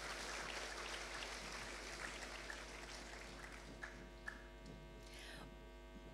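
Audience applause, a dense patter of clapping that thins out and fades over the first three or four seconds. It leaves a steady electrical mains hum with a few stray claps.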